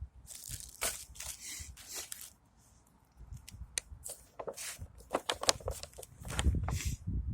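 Packaging being torn and crinkled: a couple of seconds of scratchy ripping, a short pause, then a run of quick sharp crackles.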